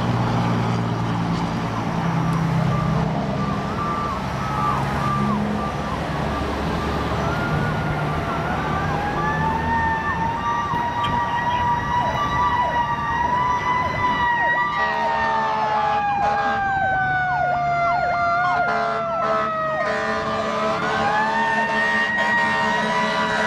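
Fire engine's Powercall electric siren wailing on an approach: it winds up about a third of the way in, holds, slowly winds down, then winds up again near the end. A faint second fast, falling siren tone and the low rumble of engines run underneath.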